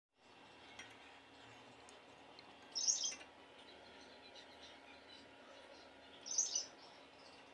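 A small bird chirping in two short bursts, about three seconds in and again about six and a half seconds in, over a steady low background hum.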